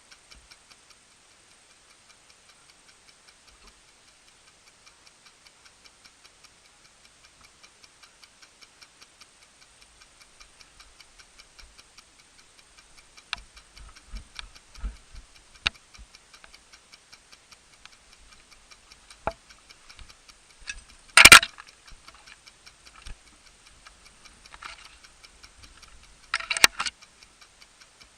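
Steady, even ticking at about four ticks a second, like a clock. A few sharp clicks break in over the second half, with a loud brief cluster of cracks about two-thirds of the way through and a smaller one near the end.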